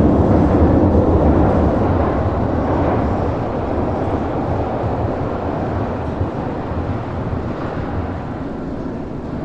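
Low rumble of a passing vehicle, loudest at the start and fading slowly as it moves away.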